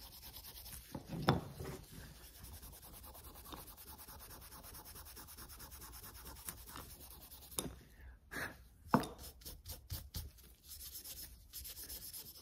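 A non-woven abrasive pad rubbing over a freshly stained wooden chair piece, burnishing the stain off its high points: a faint, steady scrubbing with a few sharper scuffs about a second in and again around eight to nine seconds in.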